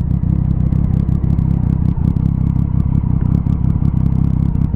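Motorcycle engine running as the bike rides along, with wind rumbling and crackling on the microphone.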